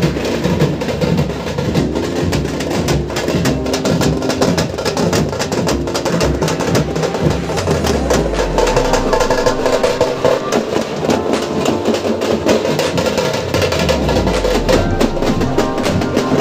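Street procession drum band playing: rapid, dense drumming on large bass drums and smaller drums, with a pitched melody line running over the beat.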